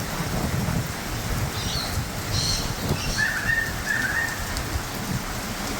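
Steady rain falling, with a bird calling over it: a few short high chirps about two seconds in, then two short warbling calls a little lower in pitch about three to four seconds in.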